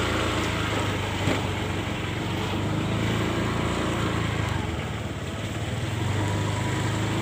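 Motor scooter engine running steadily as the scooter rolls slowly, the throttle easing slightly a little past the middle and opening again.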